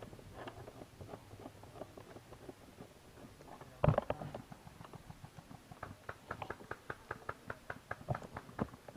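Quick footsteps on the ground at an even pace of about four a second, with one loud knock about four seconds in.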